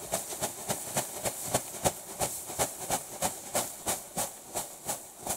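Straw being shaken out of a cloth sack in quick, even shakes, about three a second, each a short rustling swish, as it is spread into a trodden manure-and-straw mix.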